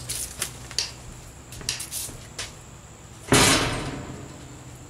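Metal tube go-kart frame rattling and clanking as it is handled and moved on a shed floor: a few light knocks, then one loud clang about three seconds in that rings and fades over a second or so.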